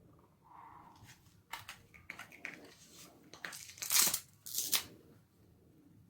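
Irregular rustling and crinkling from handling an anti-snoring mask as it is fitted and adjusted, with a few sharper scratchy rasps, the loudest about two thirds of the way in.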